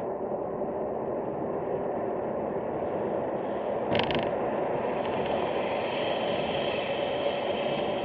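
Steady road and engine noise heard inside a moving car, with a brief rattle about four seconds in.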